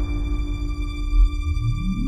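Background music: held, slowly fading tones over a low rumble, with a rising sweep starting near the end.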